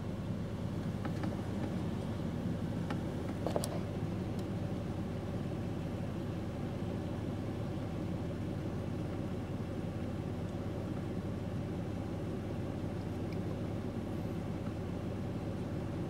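Nissan GU Patrol 4x4's engine running steadily at low revs as it crawls up rock steps, with a few sharp clicks and one louder knock about three and a half seconds in.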